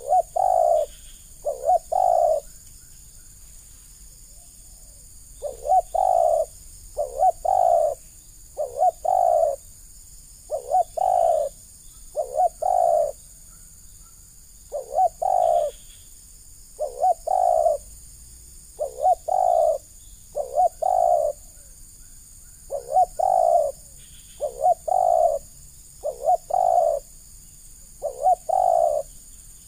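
Spotted dove cooing: short phrases of two or three low coos, repeated every couple of seconds.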